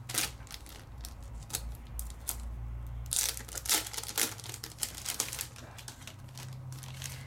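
Plastic packaging of clear stamp sets crinkling and clicking as the sets are handled and pulled out, in scattered sharp crackles over a low steady hum.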